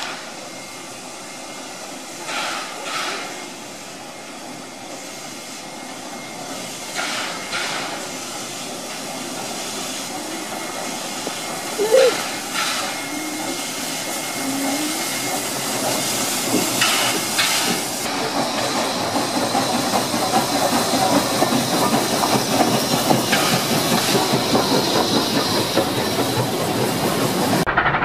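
Steam locomotive moving slowly with its train, steam hissing steadily and getting louder in the second half. Pairs of short clacks come every four or five seconds, and the sound cuts off suddenly near the end.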